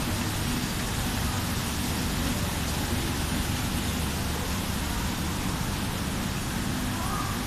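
Rope washing machine for printed fabric running: a steady mechanical hum under a continuous rush of water.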